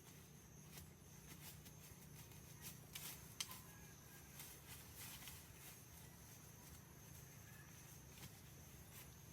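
Near silence: a faint steady background hum with a scatter of soft clicks and taps, the sharpest about three and a half seconds in.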